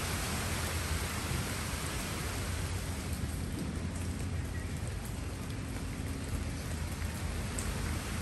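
Steady rain falling on leafy plants and ground, an even dense hiss with a low rumble underneath.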